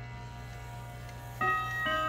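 Howard Miller 'Jennison' triple-chime wall clock starting its chime about a second and a half in, after the minute hand has been turned to the hour: clear ringing notes struck one after another, each note left to ring on under the next. Before the chime, only faint lingering ringing and the clock's movement.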